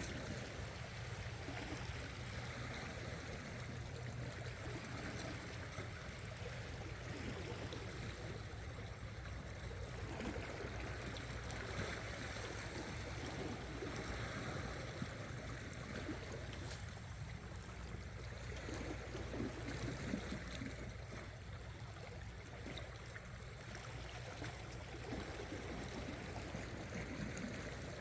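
Seawater sloshing and gurgling against shore rocks, rising and falling in gentle surges, with a steady low hum underneath.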